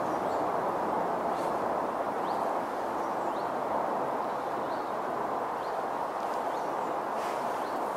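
Steady rumbling noise of a train approaching from a distance, with short rising chirps repeating about once a second above it.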